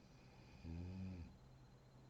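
A sleeping woman snores once, a short low snore of about half a second a little past the middle, over a faint steady low hum.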